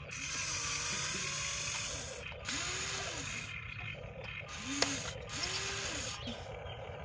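Small electric motors and gearboxes of a radio-controlled toy excavator whirring as it works its arm and bucket to load dirt. The motor pitch repeatedly rises and falls with each movement, and there is a single sharp click near the end.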